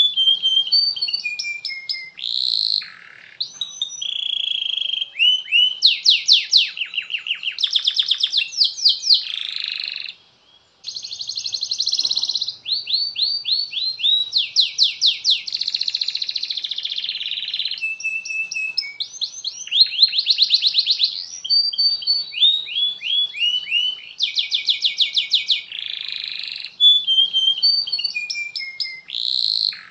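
Domestic canary singing a long, unbroken song of fast trills and rapid repeated sweeping notes, with a short pause about ten seconds in.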